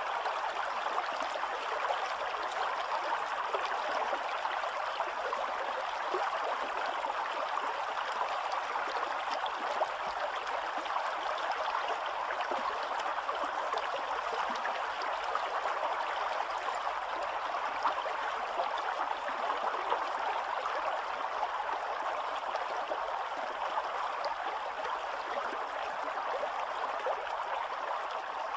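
Spring-fed stream running over rocks and small cascades: a steady, even rush of water.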